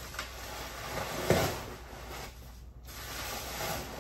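Plastic bubble wrap rustling and crinkling as it is handled and put away, with one sharp knock about a second in.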